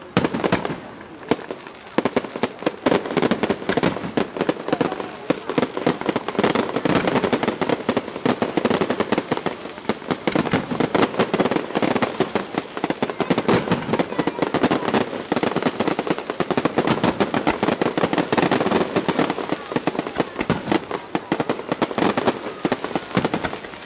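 Fireworks going off in a dense, continuous barrage of rapid bangs and crackles, thickening about two seconds in.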